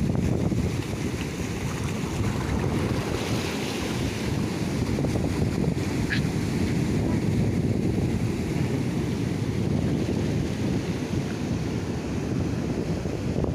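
Surf breaking and washing over a rocky reef flat, a steady rushing with wind buffeting the microphone.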